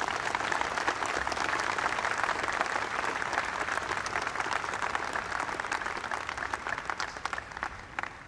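Crowd applauding: a dense patter of many hands clapping that thins and dies down near the end.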